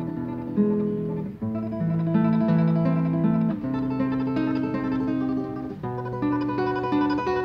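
Solo nylon-string classical guitar played fingerstyle: a melody in rapid tremolo picking over plucked bass notes, with a brief break about a second and a half in.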